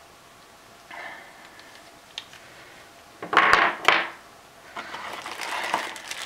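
Plastic packaging rustled and crinkled by hand in short bursts, loudest about three and a half seconds in, with a light click a little after two seconds.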